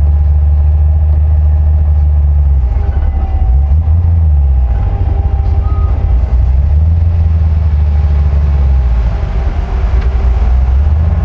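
Ford Mustang's engine idling loudly as the car creeps forward at walking pace, heard from inside the cabin; the note dips and swells slightly twice with small changes of throttle.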